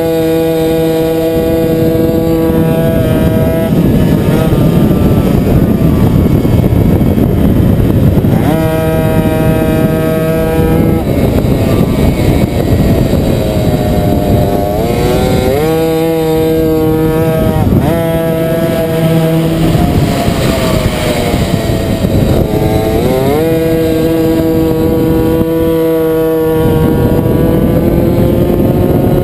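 Tuned 70cc two-stroke Puch Maxi racing moped engine at full throttle: the revs climb quickly and hold a high, steady pitch, then fall back into a rough, noisy rush as the throttle closes for the curves. This happens four times, and near the end the revs climb slowly again.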